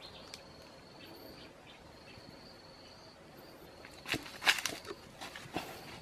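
Sharp cracks and crunches of dry twigs and leaf litter being handled and stepped on, bunched together about four seconds in and the loudest sounds. Under them, a steady high-pitched insect drone with short breaks.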